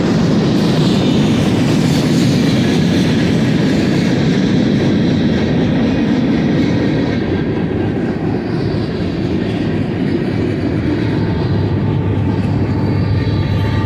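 Freight train of centerbeam lumber cars rolling past, with steady wheel-on-rail noise and clickety-clack. Near the end a Union Pacific diesel locomotive comes by, adding a steady low engine hum.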